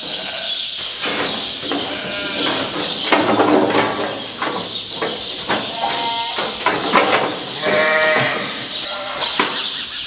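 Sheep bleating, several calls from the flock one after another, with a few sharp knocks in between.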